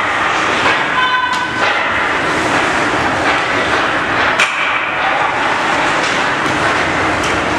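Ringette game in an ice arena: a steady wash of crowd and game noise, with a brief pitched call about a second in and a sharp knock about four and a half seconds in.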